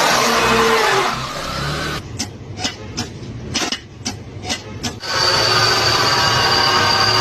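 Car mechanical fault noises in quick succession: a rushing noise, then a sharp ticking about three times a second starting about two seconds in, then a steady whirring with a high whine from about five seconds in.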